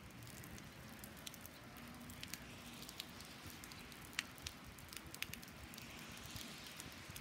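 Light rain falling on wet asphalt: a faint, steady hiss with scattered ticks of individual drops.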